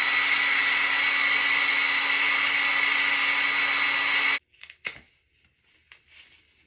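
Handheld hair blow dryer running steadily with a high whine, cutting off abruptly about four seconds in; a few faint taps follow.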